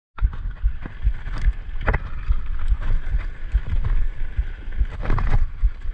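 Wind buffeting the microphone in uneven low thumps, with scattered sharp clicks and knocks over it.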